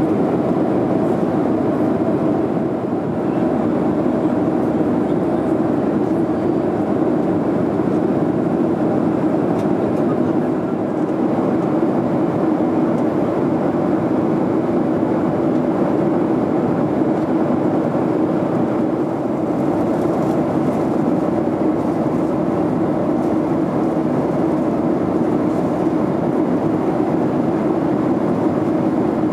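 Steady cabin noise inside a Boeing 737 at cruise, heard from a window seat beside the wing: an even rush of airflow and engine sound through the fuselage.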